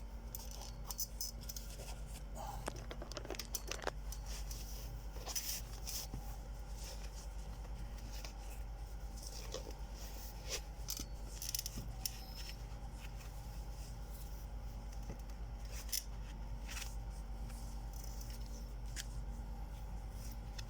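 Scattered short scrapes, rubs and clicks of a new running shoe being handled and put on, over a steady low electrical hum.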